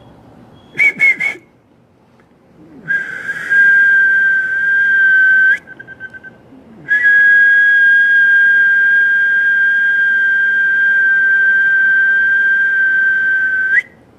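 A person whistling: three quick short whistles, then a held tone of about three seconds, and after a short break one long steady whistle of about seven seconds that sinks slightly in pitch.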